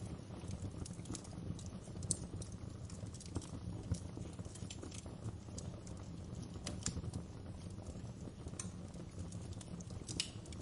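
Wood fire in a fireplace burning, with a steady low rumble of flame and frequent irregular crackles and pops.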